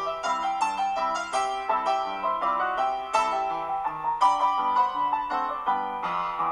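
Piano music: a steady flow of notes, several a second.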